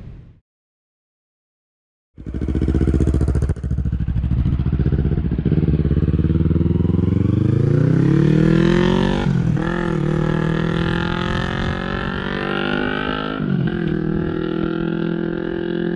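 Yamaha YZF-R3 parallel-twin engine running through an Arrow Pro-Race full exhaust system, coming in after a short silent gap and accelerating, its pitch climbing then dropping sharply twice at upshifts before settling at a steadier speed.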